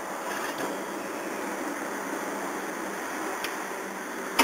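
Steady mechanical hum and hiss of a cup noodle vending machine's hot-water dispenser, with two light clicks and a sharp click at the very end.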